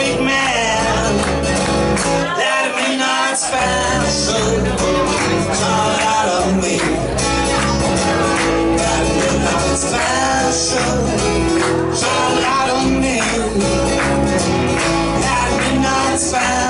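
Live country music: an acoustic guitar and an electric bass guitar played with a man singing into a microphone. The bass drops out for about a second near the start, then comes back in.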